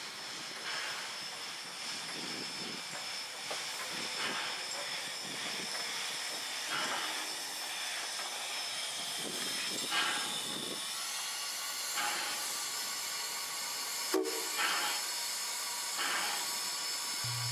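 Polson Logging Co. No. 70, an oil-burning 2-8-2 steam locomotive, hissing steam steadily as it rolls slowly past, with soft puffs every second or two.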